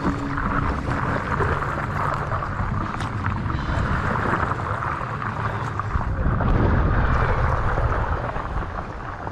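Steady wind rumble on the microphone of a camera mounted on a moving paddle board, with water washing and splashing against the board.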